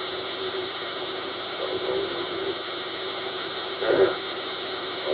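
CB radio speaker receiving a keyed-up 27 MHz FM transmission: steady hiss and hum on the open channel, with a few faint, muffled voice sounds from the far station's microphone during an audio test.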